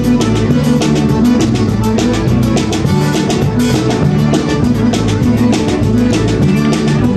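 A live band with button accordion, fiddle, acoustic guitar and drum kit playing an upbeat dance tune over a quick, steady drum beat.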